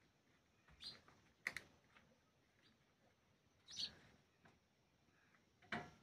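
House sparrows chirping: four short, faint chirps spaced one to two seconds apart.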